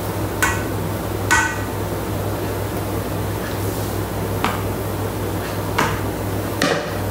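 Black ladle knocking against the inside of the stainless-steel Thermomix mixing bowl while scooping out bechamel sauce: five light clinks, the first two with a short metallic ring.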